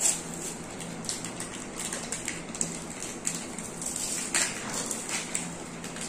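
Plastic ice cream wrappers crinkling and crackling in short, irregular bursts as they are torn and peeled open, mixed with the mouth sounds of ice cream being eaten.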